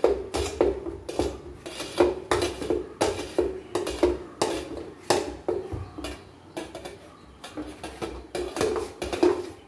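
Steel spoon stirring and scraping inside a stainless steel container, clinking against its walls about two or three times a second, the pot ringing briefly after each knock. The strokes slow and soften for a couple of seconds past the middle, then pick up again.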